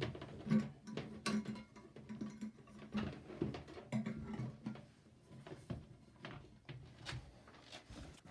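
Irregular light clicks, taps and knocks of small plumbing parts being handled and fitted by hand.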